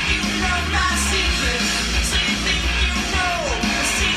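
Rock song playing back from a record on a turntable, with a singer over electric guitars and drums.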